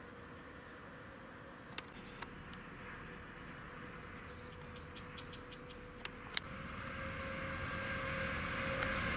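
Distant electric trains running on the line, faint and steady, with a few sharp clicks. About two-thirds in, the noise of an approaching container freight train behind an electric locomotive grows steadily louder.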